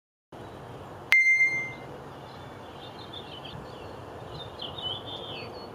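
A single bright ding about a second in that rings briefly and fades, then small birds chirping over a steady outdoor background hiss.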